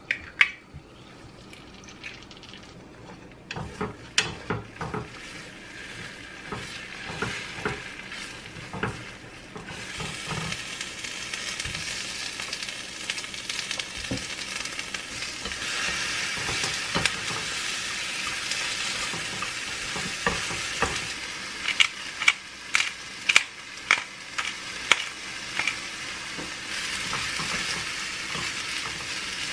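Scrambled eggs and cherry tomatoes sizzling in oil in a square egg pan, with wooden chopsticks tapping and scraping the pan as they stir. The sizzle thickens from about ten seconds in, and there is a quick run of sharp taps a little after twenty seconds.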